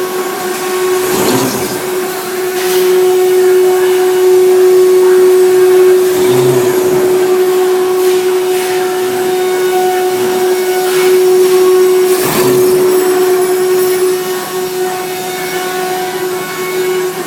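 Omnitech CNC router cutting wood parts: the spindle runs with a steady whine over a rushing hiss, with a few brief louder passes as the bit works through the material.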